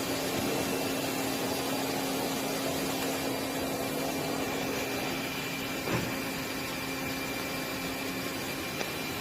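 Steady machinery hum and hiss with a few constant tones, like running equipment on a factory floor. A short knock comes about six seconds in, and a fainter click near the end.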